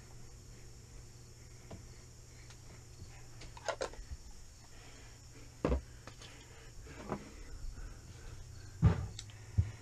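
Scattered knocks and thumps from handling the canvas and moving about inside a pop-up camper, five or so in all, the loudest about nine seconds in. Under them runs a steady high insect chirr.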